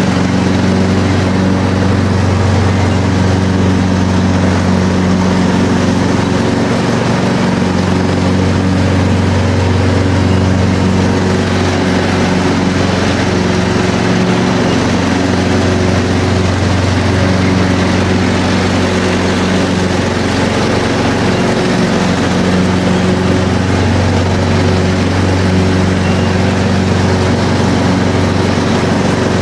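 Lawn mower engine running steadily, a constant loud low hum.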